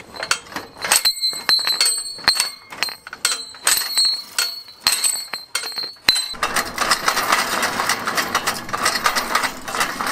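Metal clicking and clinking from a potato Gatling gun's rotating barrel and cartridge mechanism, with a steady high ringing tone between the clicks. About six seconds in, the sound changes suddenly to a dense, rapid rattle.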